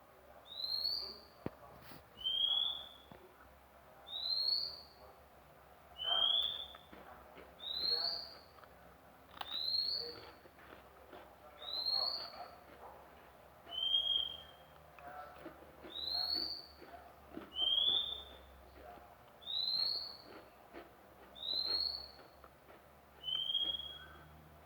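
Oriental magpie-robin (murai kampung) calling: one short rising whistle, repeated evenly about every two seconds.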